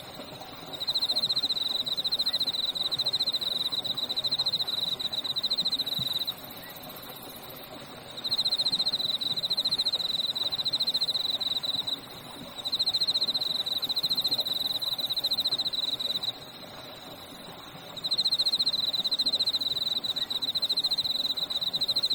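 An insect trills at a high pitch in long bouts of four to five seconds with short pauses between them. Underneath runs a steady background of frogs calling and a babbling stream.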